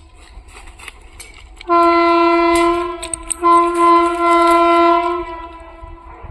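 Indian Railways train horn sounding two long blasts, the second longer, over a low rumble of the train, starting nearly two seconds in and fading out near the end.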